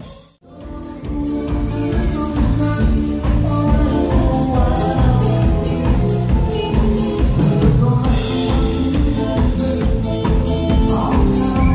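Live band music with a drum kit prominent, the drums playing a steady beat under held pitched notes from the other instruments. The sound drops out almost to silence for a moment just after the start, then the music comes back in.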